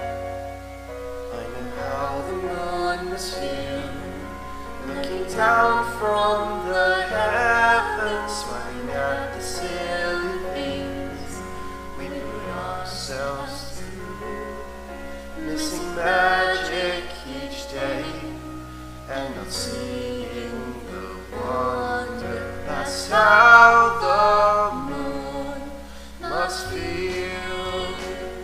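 Song playing: a singing voice with vibrato over gentle instrumental accompaniment.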